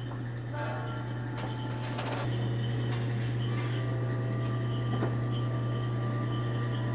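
Steady low hum that gets louder about two seconds in, with a few faint clicks and thin steady high tones over it.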